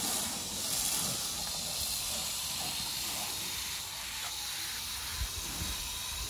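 Snow foam gun on a hose spraying foam onto a car in a steady hiss.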